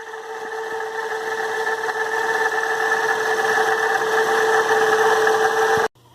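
2007 Toyota Yaris engine running with a steady whine from its failing water pump, growing louder over the first few seconds and cutting off abruptly near the end.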